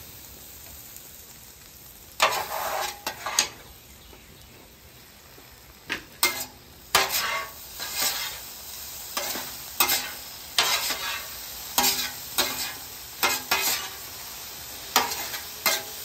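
Tortellini and vegetables in cream sizzling on a flat-top griddle while metal spatulas scrape and clack across the steel surface, tossing them. The sizzle is steady. The spatula strokes come in a short flurry about two seconds in, then about once a second from about six seconds on.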